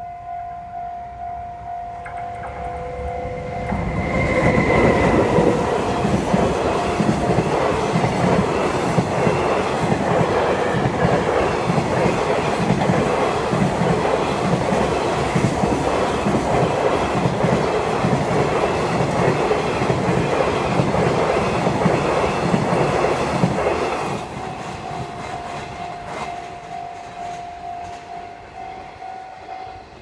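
Level-crossing warning bell ringing in quick, even pulses, then a train passing for about twenty seconds, loud enough to drown the bell, with rhythmic clacking of wheels over the rails. The train fades about 24 seconds in and the crossing bell is heard ringing on.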